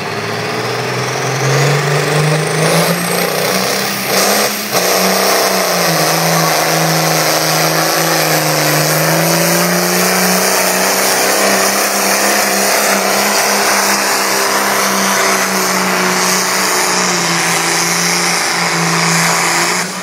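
Modified diesel farm tractor at full throttle pulling a weight-transfer sled, its engine building over the first couple of seconds and then holding at high revs, the pitch sagging and recovering as it works against the load.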